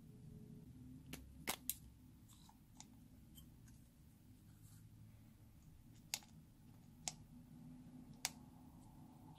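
Faint, sparse clicks of a plastic spatula knocking and scraping inside a metal lipstick tube as the lipstick is dug out: a quick pair about one and a half seconds in, then three single clicks about a second apart near the end, over near silence.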